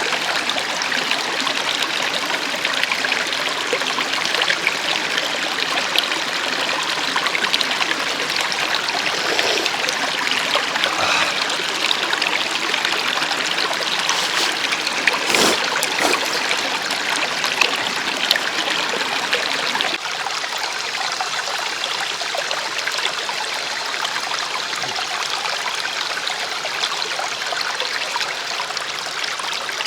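Mountain stream running steadily over rocks, a continuous rush of water, with a single brief knock about halfway through.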